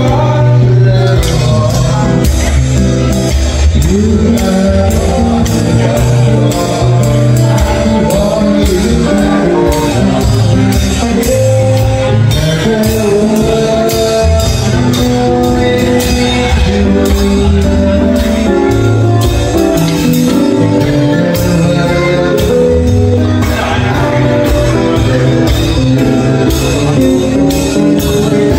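Live band playing with a steady drum-kit beat, guitars and a man singing into a microphone.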